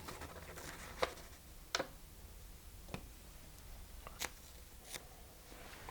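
Faint handling sounds of a paper-backed adhesive chin strip being peeled and handled: about five soft, sharp clicks spread over the few seconds, over a low room hum.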